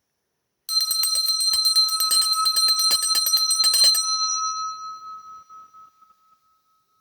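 A metal hand bell shaken rapidly, its clapper striking many times a second for about three seconds, then left to ring out and fade.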